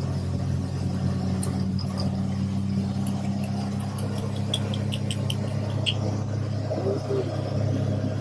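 Steady low rumble of a car driving, heard from inside the cabin. A few light ticks come about halfway through.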